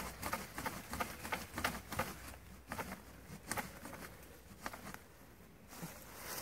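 Folding military shovel's blade cutting into a thin sapling stem: a run of quick, uneven strokes for about three and a half seconds, then only a few scattered ones.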